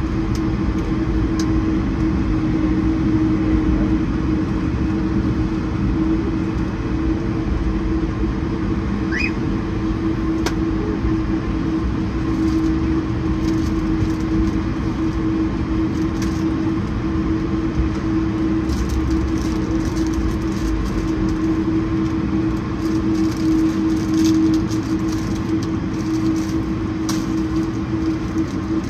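Steady cabin noise inside an Airbus A220-100: the even hum of its Pratt & Whitney PW1500G geared turbofan engines and air noise, with a constant low drone and a few faint rattles.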